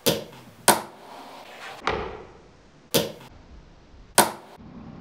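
A fingerboard being popped, flipped and landed on a wooden tabletop and metal rail: five sharp clacks of the board's tail and wheels striking the surface.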